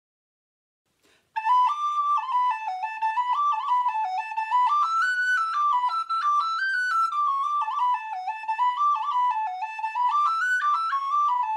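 Solo wooden descant recorder playing a quick traditional Irish tune as a fast run of stepping notes, starting about a second in.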